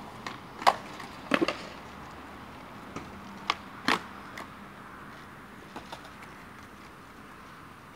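Skateboard being ridden on flatground: about five sharp wooden clacks of the board and wheels hitting the ground in the first four seconds, two of them doubled, then the wheels rolling along.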